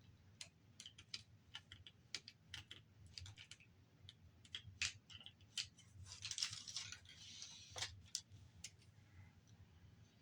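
Light, irregular clicks and taps of small plastic parts of a Blu-ray disc-drive mechanism being handled and worked with a small screwdriver, with a brief scraping rustle about six seconds in.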